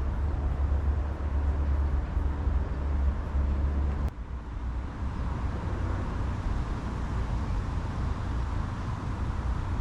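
Strong wind buffeting the microphone: a heavy low rumble that drops away with a click about four seconds in, leaving a steady rushing hiss.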